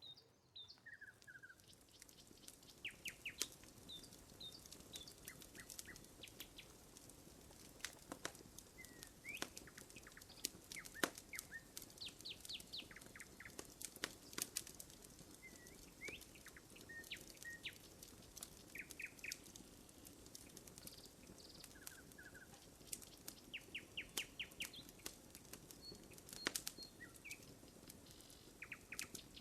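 Wood campfire crackling, with frequent sharp pops at irregular intervals. Small birds call in the background with short chirps and quick trills.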